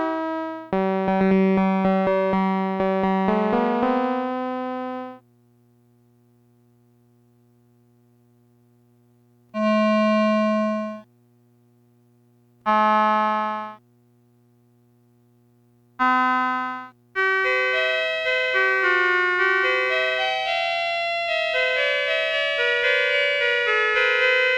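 Casiotone 101 vintage keyboard playing, heard through an HRK C2584 colour processor. It plays held notes and chords for the first four seconds, then pauses, with a faint steady low hum still under it. Two short chords come about ten and thirteen seconds in, and from about sixteen seconds a quick melodic run of notes plays.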